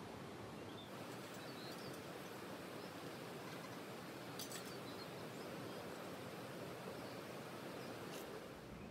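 Faint outdoor ambience: a steady background hiss with a few faint bird chirps in the first few seconds and a short click about four and a half seconds in.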